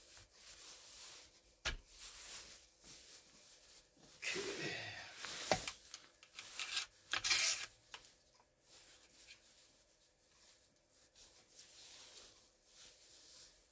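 Gloved hands handling the steel recoil spring and receiver of a Draco AK pistol during reassembly: rubbing and scraping, with a few sharp metal clicks, one about two seconds in and another about five and a half seconds in.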